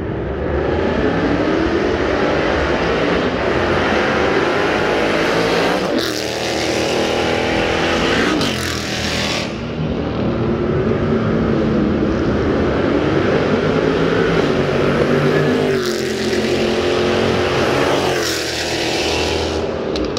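A car engine revving hard and continuously, its pitch climbing and falling over and over with several sudden drops as the revs are cut and built again.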